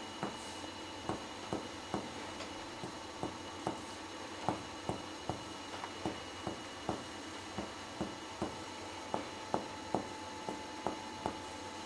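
Finger-on-finger percussion of a patient's back over the lungs: short, evenly paced taps, about two to three a second. The taps give a clear pulmonary percussion note over both lungs, the finding of normal lung.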